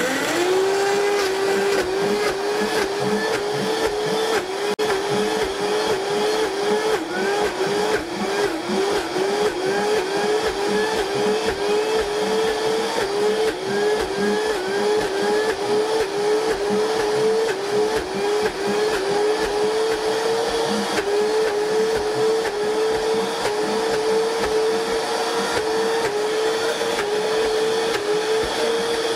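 Vitamix Professional Series blender running up to high speed and crushing ice as the plunger pushes the ice down onto the blades. The motor note dips under each push, about twice a second, and creeps slightly higher as the ice breaks down and the load eases.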